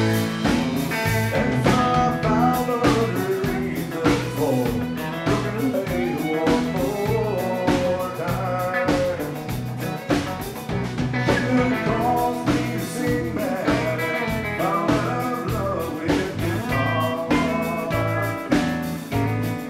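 Live band playing a bluesy country-rock song: an electric guitar plays bending lead lines over a steady drum beat and bass.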